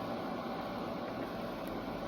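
Steady mechanical hum of background noise, like a fan or air conditioning, with no distinct clicks or knocks.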